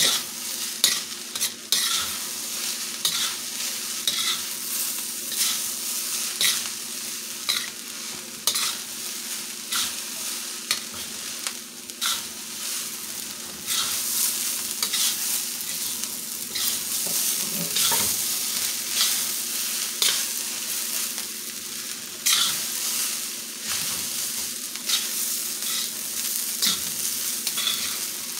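Fried rice with broccoli sizzling in a steel wok while a metal spatula stirs and tosses it, scraping against the wok about once a second. A steady low hum runs underneath.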